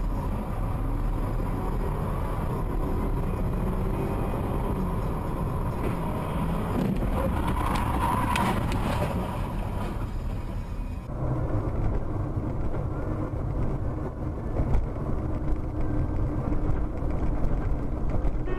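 Steady road and engine rumble inside a moving car's cabin. The character of the noise changes abruptly about eleven seconds in.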